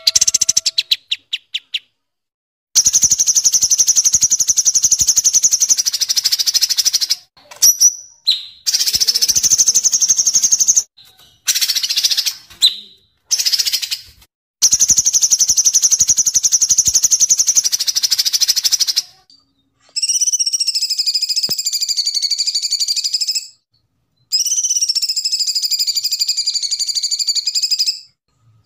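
Kapas tembak and cucak cungkok songbirds singing. The song comes as long, very rapid, high trills of several seconds each, broken by short gaps and a few brief notes. Near the end come two phrases whose trills waver up and down in pitch.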